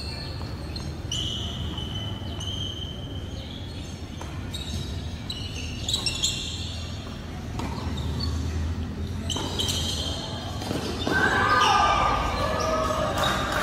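Tennis rally in a large echoing indoor hall: sharp racket-on-ball strikes and ball bounces on the hard court, one of them about six seconds in, with short high squeaks of sneakers on the court surface. Voices call out near the end.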